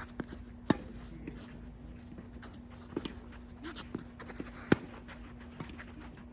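Tennis ball struck by rackets in a rally: two sharp hits about four seconds apart, with softer knocks of bounces and footsteps between and a steady low hum underneath.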